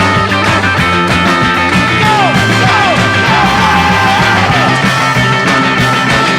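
Rock song with a steady beat, with no singing in this stretch. About two seconds in, a lead part slides and bends up and down in pitch for a few seconds.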